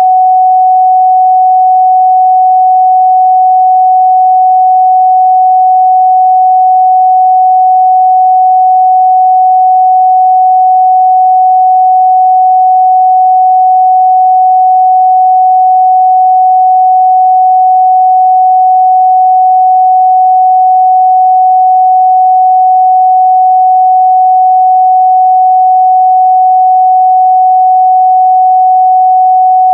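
A pure 744 Hz sine-wave test tone, held steady and loud with no change in pitch or level.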